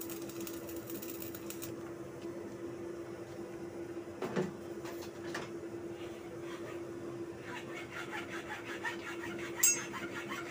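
Stick arc welding crackling and sizzling on a steel-rod crate joint, stopping about two seconds in, over a steady hum. Afterwards come a knock, a rapid run of light metallic ticks, and a loud metal clank near the end.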